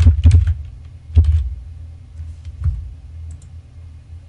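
Typing on a computer keyboard: quick clusters of keystrokes near the start and about a second in, then a few sparser clicks, over a steady low hum.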